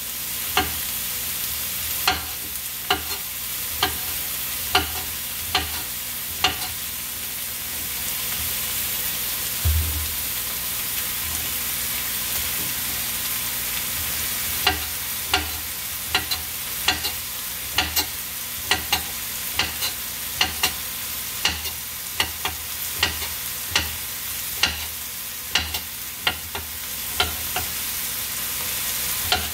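A knife slicing a patola (silk squash) into rounds on a cutting board, each cut landing as a sharp knock, over the steady sizzle of ground pork, onion and squash frying in a pan. The cuts come about once a second, pause for several seconds in the middle, then pick up faster toward the end.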